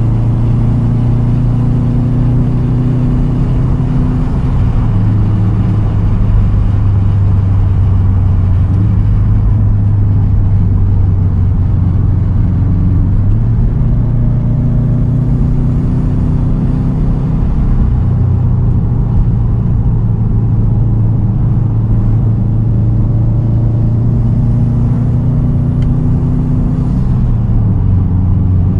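2010 Subaru WRX STI's turbocharged 2.5-litre flat-four running through a Tomei titanium straight-pipe exhaust at cruise, a steady low drone. Its pitch steps a few times as the driver changes throttle or gear, about five seconds in, near the middle and near the end.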